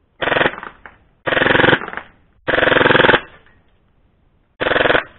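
HFC MAC-10 (M11) gas blowback airsoft replica firing on full auto in four short bursts of rapid shots. The third burst is the longest.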